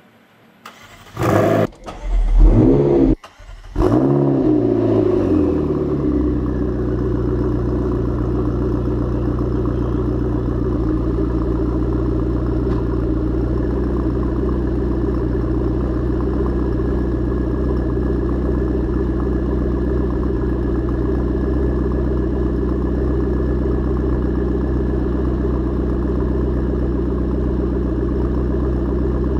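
McLaren 12C's twin-turbo V8 breathing through a Milltek exhaust, started up with a couple of loud blips and a flare of revs in the first few seconds. The revs then fall away and it settles into a steady idle for the rest.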